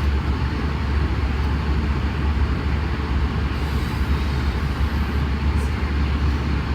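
Airbus A320 cabin noise in flight: a steady rush of airflow and engine drone, heavy in the deep rumble, unchanging throughout.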